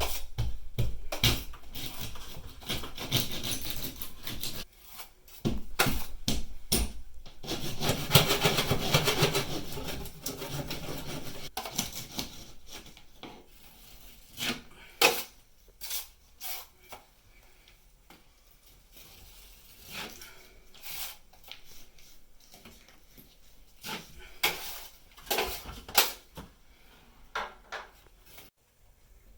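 Scraping and rubbing for about ten seconds, then scattered knocks and clinks of hard objects being handled.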